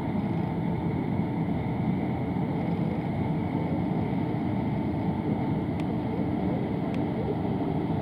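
Steady low rumble of the general cargo ship Arklow Racer's engines and machinery as it passes, with a faint steady high hum.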